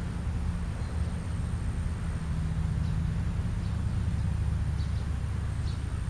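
Steady low outdoor rumble, with a few faint, short bird chirps in the second half.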